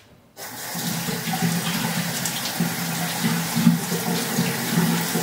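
Kitchen tap turned on about half a second in, water running steadily while potatoes are rinsed under it.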